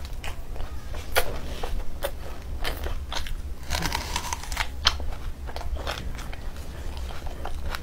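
Mouth sounds of eating: wet chewing and smacking with sharp, crisp crunches, one cluster of them as a whole raw red onion is bitten into about four seconds in. A steady low hum runs underneath.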